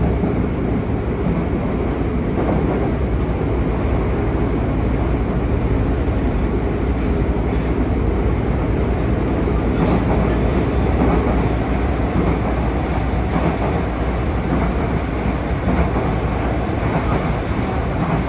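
Steady in-car running noise of a Yokohama Municipal Subway 3000R (Mitsubishi IGBT-VVVF) train travelling through a tunnel between stations: an even rumble of wheels on rail and traction gear. A single faint click comes about ten seconds in.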